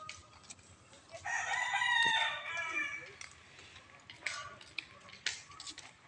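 A rooster crowing once, a single drawn-out call lasting about two seconds, starting about a second in.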